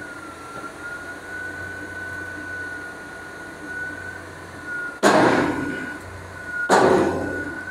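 Bauer BG rotary drilling rig running, with a steady low hum and a steady high whine, broken by two loud bangs about five and six and a half seconds in that each die away over about a second.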